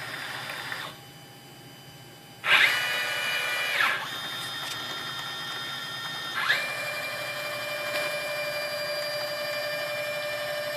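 Stepper motors of a hobby CNC machine driving its axes through a test program. After a brief lull, a move starts about two and a half seconds in with a quick rising whine, the pitch shifts near four seconds, and another move starts with a rising sweep about six and a half seconds in, settling into a steady whine of several tones.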